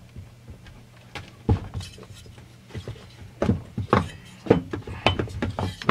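Husqvarna 455 Rancher chainsaw cylinder being worked loose and lifted off the crankcase by hand: a series of irregular metal knocks and clunks, more frequent in the second half.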